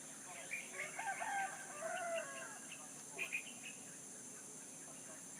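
A rooster crowing once, a call of about two seconds, followed by a few short, sharp bird calls about three seconds in.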